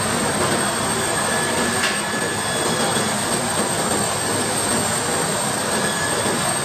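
Steady jet-aircraft noise: an even rushing rumble with a thin, constant high whine over it, and a single sharp click about two seconds in.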